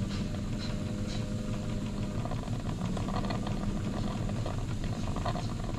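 Wilesco D21 toy live-steam stationary engine running steadily under steam, its cylinder and flywheel turning at an even pace.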